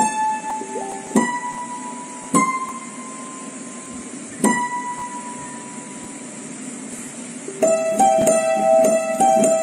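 Upright piano played by hand: four slow single notes, each struck and left to ring and fade, then a quick flurry of notes near the end.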